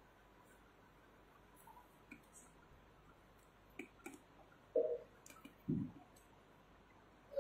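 Quiet room with a few scattered clicks and soft knocks from about four seconds in.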